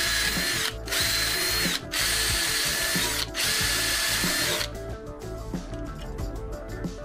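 Ryobi cordless drill drilling out screw holes in a metal plate, running in four spells with a steady high whine and short pauses between them, then stopping a little past halfway. Background music plays underneath.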